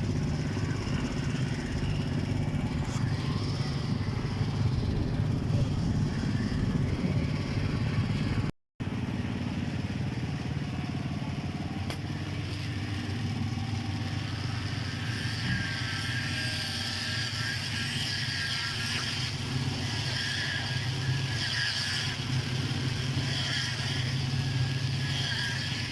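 An engine running steadily at an even speed, with a brief dropout about nine seconds in.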